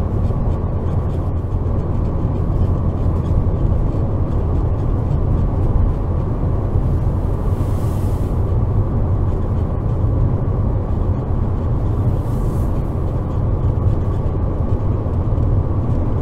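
Cabin noise of a 2007 Renault Logan cruising at steady throttle: the 1.6-litre eight-valve K7M engine running under even load with tyre and road rumble, level throughout. Twice a brief rush of hiss rises and fades, about halfway and three-quarters of the way through.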